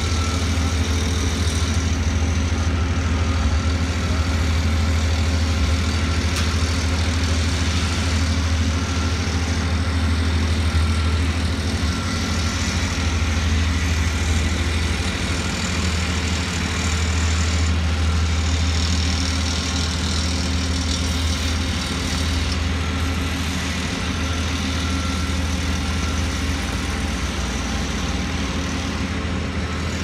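A large engine running steadily, with a deep, even hum and no change in speed.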